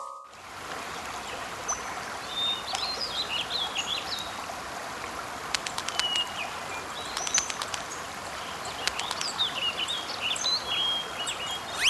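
Outdoor nature ambience: several small birds chirping and twittering over a steady rushing background, with a few sharp ticks in the middle.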